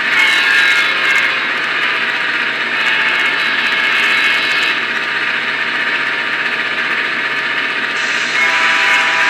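Sound decoder in an N-scale VIA Rail F40PH-2D model locomotive playing a steady diesel prime mover running sound through its tiny onboard speaker, thin with no bass. A chord of steady higher tones comes in near the end.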